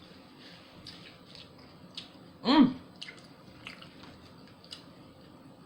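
Close-up wet chewing and mouth clicks from eating a submarine sandwich, with one short, loud voiced sound about halfway through.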